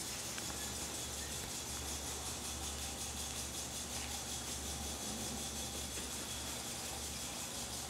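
Steady hiss with a low hum underneath, and no clear barks, yelps or growls.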